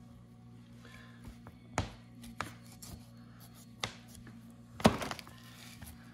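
Scattered sharp knocks and taps of a knife and hands on a work table while cutting around a badger's foot, the loudest a short clatter about five seconds in, over a steady low hum.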